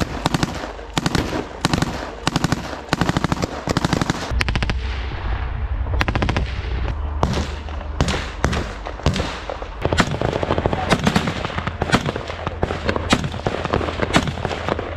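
Small-arms gunfire from rifles and a machine gun: rapid bursts of automatic fire in the first few seconds, then a run of single and paired shots.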